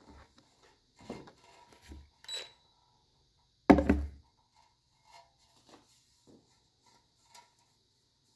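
Handling noises from work on a fluorescent light fixture: a few light knocks and clicks, and one louder thump nearly four seconds in, followed by small scattered ticks.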